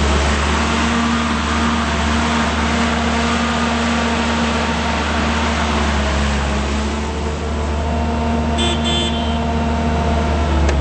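Terex PT80 compact track loader's diesel engine running steadily with a deep hum and a heavy machine hiss, which eases a little about seven seconds in. A brief high-pitched chirp sounds near the end.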